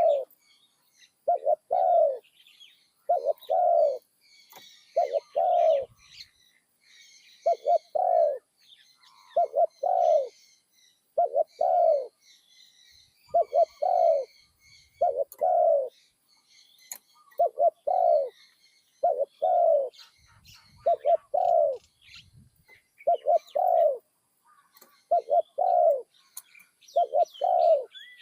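Spotted dove cooing, a low two-part coo repeated about every two seconds. It is a caged decoy male with a medium-pitched voice calling on its first training outing. Small birds chirp faintly in the background.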